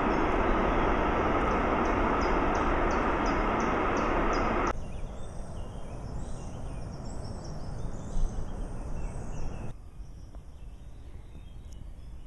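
Woodland birds chirping and singing, with one bird repeating a short high note about twice a second. For the first four and a half seconds a loud, steady rushing noise lies under the birdsong, then stops suddenly, leaving the birds over a quiet background.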